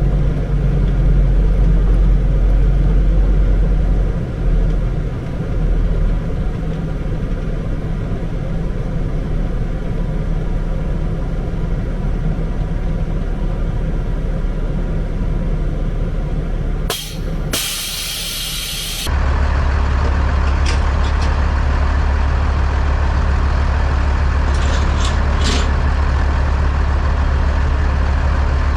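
Heavy truck running steadily with a low rumble. About two-thirds of the way in there is a short hiss, after which the sound changes to a deeper, even hum.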